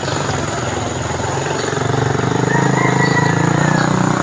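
A motor vehicle engine running close by, growing gradually louder.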